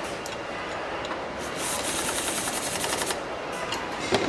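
Assembly-plant floor noise with a pneumatic air tool rattling in one rapid burst of about a second and a half, starting about a second and a half in. A single sharp metal clank near the end.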